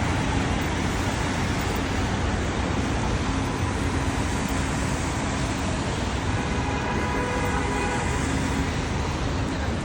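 Steady city traffic on rain-wet streets, an even hiss of vehicles and rain with no single event standing out. A faint pitched sound joins in from about six to eight and a half seconds in.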